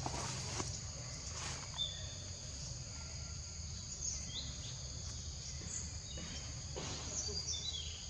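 Steady high-pitched drone of an insect chorus, with a few short chirps and a couple of brief soft rustles.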